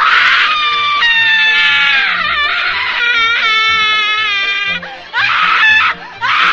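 High-pitched screaming: a long, wavering shriek that slowly falls in pitch, then shorter screams near the end.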